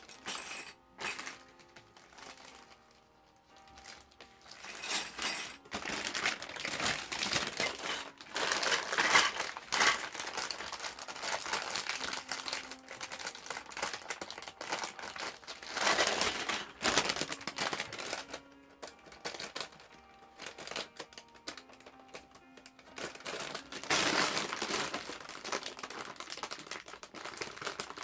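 Plastic bags of Lego pieces crinkling as they are handled, in several bursts a few seconds long, over faint background music.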